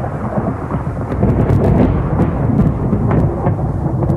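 Thunder sound effect: a loud, continuous low rumble with sharp crackles running through it.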